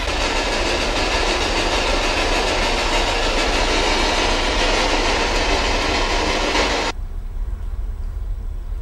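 Steady loud hiss of static noise that cuts off suddenly about seven seconds in, leaving a quieter low hum.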